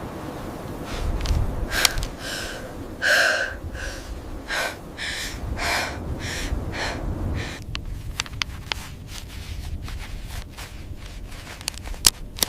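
A run of short, heavy breaths or snorts about half a second apart, stopping after about seven seconds, over a low rumble; scattered light clicks follow.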